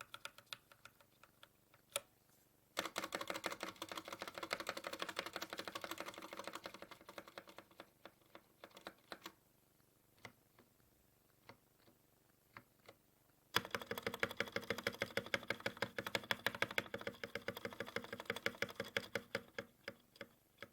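Typing on a mechanical keyboard with Greetech Red linear switches, Cherry MX Red clones, in a GK61 hotswap board. Two spells of fast, continuous keystrokes, with slower, scattered keypresses between them.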